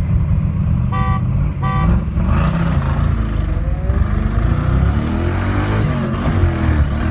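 Car engines running loud with a heavy low rumble. About a second in come two short beeps, then from about four seconds the engines rise steadily in pitch as the cars accelerate hard.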